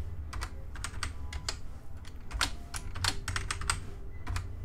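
Computer keyboard keys tapped in an irregular run of keystrokes as a password is typed, over a low steady hum.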